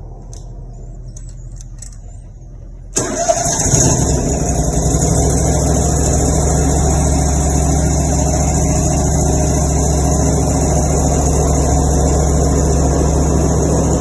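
Grasshopper zero-turn mower engine started on its newly replaced ignition switch. After a few faint clicks it starts abruptly about three seconds in, runs steadily, and shuts off at the end, showing that the new switch works.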